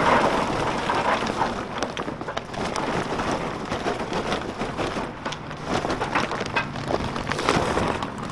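Charcoal briquettes poured from a paper bag into a steel grill barrel, clattering and rattling onto the charcoal grate in a continuous patter of clicks that comes in uneven surges as the bag is tipped.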